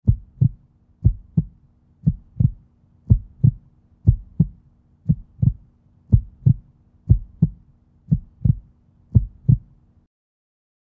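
Heartbeat sound: paired low thumps, lub-dub, about one pair a second, over a faint steady hum. It cuts off suddenly about ten seconds in.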